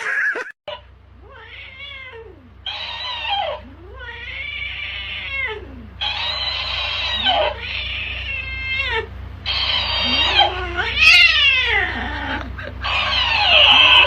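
Cat yowling over and over in a string of long drawn-out calls that rise and fall in pitch, with short gaps between them.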